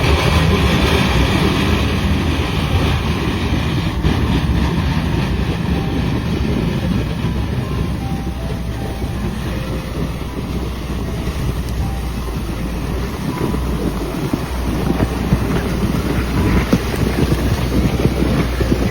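Heavy snow-clearing machine running steadily, a loud low engine rumble with churning noise, and wind buffeting the microphone.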